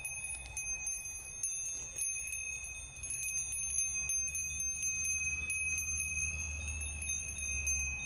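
Goat neck bells ringing and clinking as the herd grazes: several bells at different pitches ring on together, with many small strikes.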